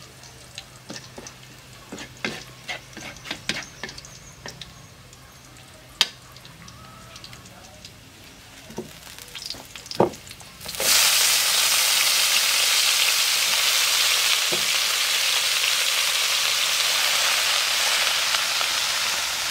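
Scattered clicks and knocks of kitchen utensils, then about eleven seconds in a sudden loud sizzle as food hits hot oil. It settles into a steady frying hiss: water spinach being stir-fried with garlic.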